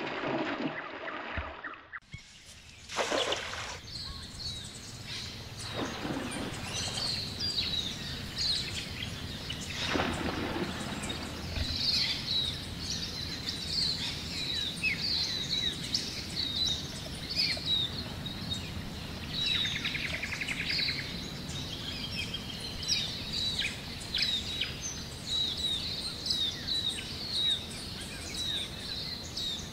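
Outdoor bird chorus: many short high chirps and calls from several birds, continuing steadily, with a short rapid buzzing trill about two-thirds of the way through. Three brief louder swishes come in the first ten seconds.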